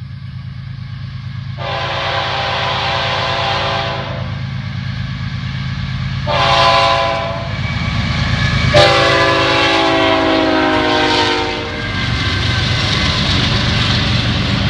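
Air horn of a freight train's lead GE ES44C4 diesel locomotive sounding three blasts, long, short, long, the closing pattern of a grade-crossing signal, over the growing rumble of the approaching diesel engines. After the last blast the locomotives pass and the rumble and rail noise of the cars go on.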